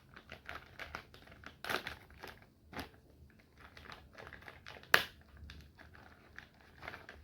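Plastic crinkling and small handling clicks, the sharpest single click about five seconds in, as a packaged replacement laser scanner unit for an HP LaserJet 1020 is opened.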